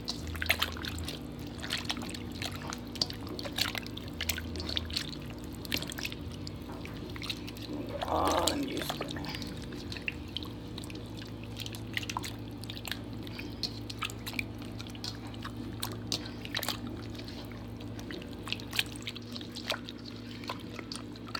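Hands squishing and turning raw chicken thighs in a wet marinade in a metal bowl: many small wet clicks and drips over a steady low hum, with one short louder sound about eight seconds in.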